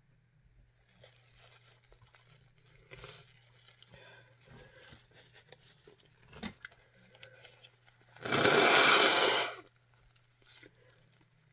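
Faint scattered clicks and rustling handling sounds, then a loud harsh crunching, tearing noise about eight seconds in that lasts about a second and a half.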